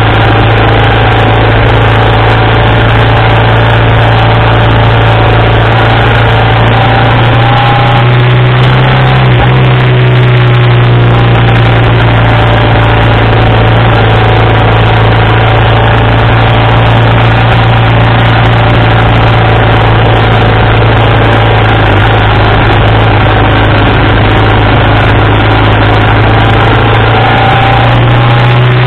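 1987 BMW R80RT's air-cooled flat-twin boxer engine running steadily at road speed, loud and close with wind noise over it. About eight to eleven seconds in, the engine note briefly shifts in pitch, then settles again.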